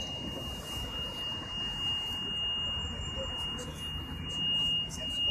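A steady, high-pitched electronic tone over low rumbling and handling noise, which swells near the end.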